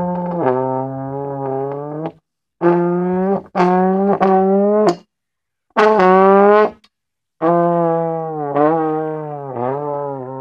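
Trombone played to imitate a race car: five held blasts with short gaps between them, the pitch bent with the slide. One sweeps upward near the middle, and the long last one sags lower in dips toward the end.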